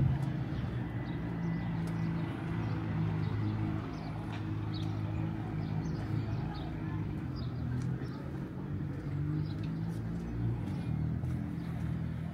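Outdoor street ambience: a motor vehicle engine running steadily with a low hum, and a few faint bird chirps scattered through.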